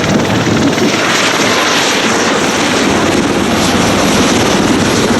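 Royal Navy Westland Sea King helicopter, its main rotor and twin turboshaft engines running in a loud, steady rush of rotor and turbine noise.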